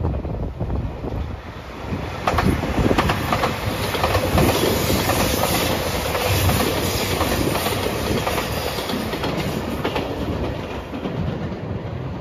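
JR Shikoku 2700 series diesel limited express passing close by, its wheels clattering over the rail joints. The sound builds about two seconds in and eases off near the end as the train goes by.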